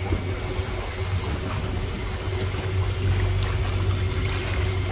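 Small boat's motor running with a steady low hum while under way, over the wash of water along the hull.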